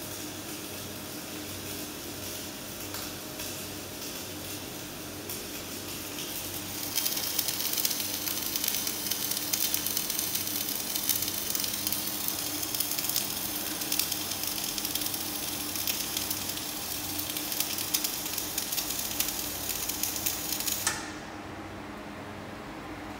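Flux-cored wire welding arc crackling and sizzling, softer at first and then loud and steady with sharp spitting crackles, cutting off abruptly near the end as the weld stops.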